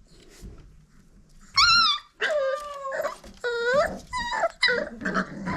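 Five-week-old red nose pit bull puppies whining and yelping: a run of high-pitched cries that bend in pitch, starting about one and a half seconds in.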